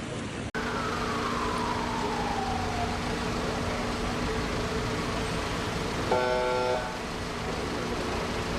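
Emergency-vehicle siren wailing down in pitch over about two seconds over steady street noise, with a short horn blast about six seconds in.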